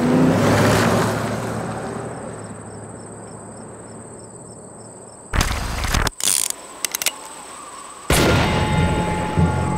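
A car speeding away along a gravel road, its sound fading over about two seconds, leaving faint insects chirping in a steady rhythm of about four chirps a second. About five seconds in a loud boom hits, followed by a few sharp cracks like gunshots, and music starts near the end.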